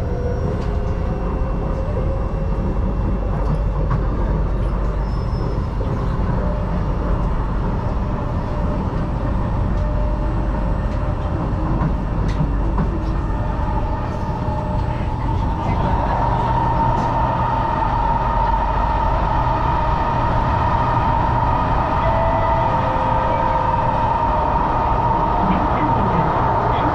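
Singapore MRT East-West Line train running, heard from inside the passenger carriage: a steady low rumble of the wheels on the track. About halfway through, a steady high tone joins in and the running gets a little louder.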